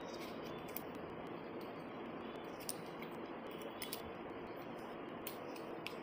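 A handful of sharp metallic clicks as the hex keys and socket pieces of a folding multi-tool are handled and fanned out, over a steady background hiss.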